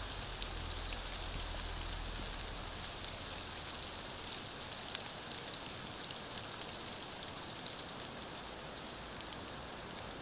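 Rain mixed with snow falling steadily, with scattered sharp ticks of drops striking. A low rumble underneath dies away about three seconds in.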